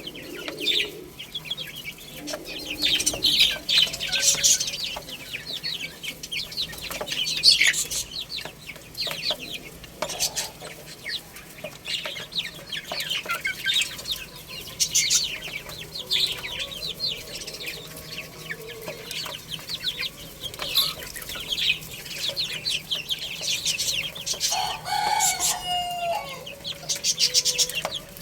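Many baby chicks peeping continuously in quick, high-pitched chirps. Near the end an adult chicken gives one louder, lower call that falls in pitch.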